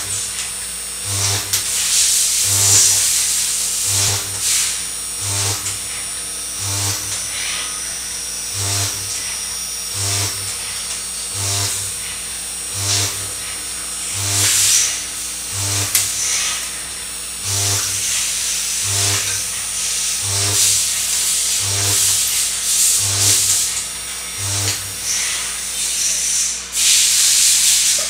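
CNC machine spot-drilling and chamfering holes in steel with a Nine9 W-type 145°/90° NC spot drill at 6000 rpm under flood coolant: a steady hiss of coolant spray with a low hum pulse repeating about every second and a half. Near the end the hiss swells louder for a second or two.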